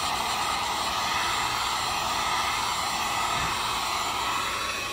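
Heat gun running steadily, its fan blowing hot air in an even whooshing hiss, a little quieter near the end.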